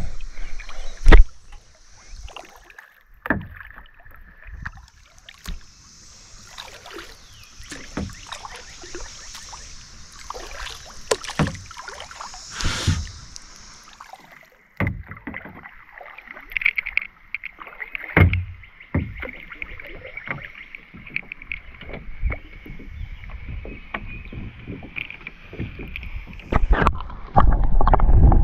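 Kayak on the water: irregular paddle splashes and knocks against the hull, with one sharp, loud knock about a second in. A steady high-pitched drone runs through the second half.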